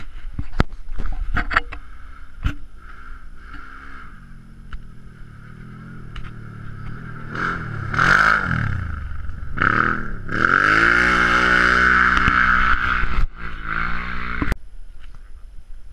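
Side-by-side UTV engine revving hard as it approaches and slides through a dirt corner. Its pitch climbs, drops briefly as the throttle is lifted, then climbs again and is held high as it passes close by. The sound cuts off suddenly.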